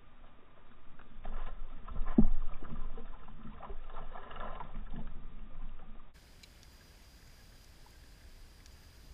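A just-caught bass being released at a kayak's side, splashing and kicking at the water surface, with a loud splash about two seconds in. About six seconds in the sound drops to a faint steady hush.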